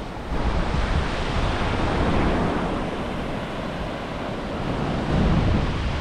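Small waves breaking and washing up a sandy beach, with wind buffeting the microphone in low rumbling gusts that grow stronger about five seconds in.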